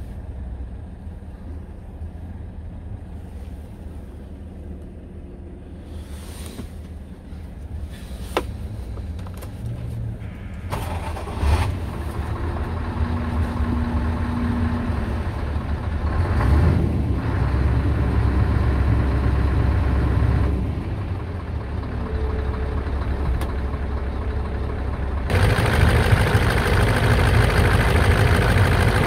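Scania R-series truck's diesel engine idling, muffled from inside the cab at first. It turns suddenly louder near the end, heard straight from the open engine bay.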